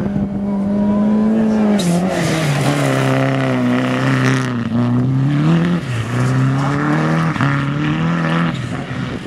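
Rally car engine at high revs on a gravel stage. The revs dip and climb again several times, and there is a hiss of spraying gravel as the car slides close past.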